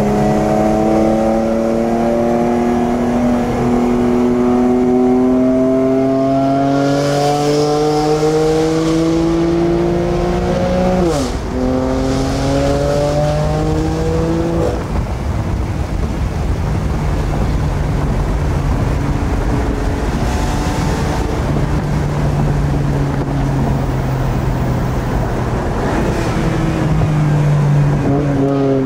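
BMW M4 GTS's twin-turbo straight-six heard from inside the cabin, pulling with a slowly rising pitch for about ten seconds. A gearshift drops the pitch briefly, and it climbs again for a few seconds before settling into a steady, lower drone while cruising.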